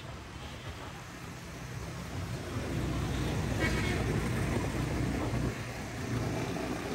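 Motorcycle engine running while riding in road traffic, with road and wind noise; the engine gets louder about two and a half seconds in.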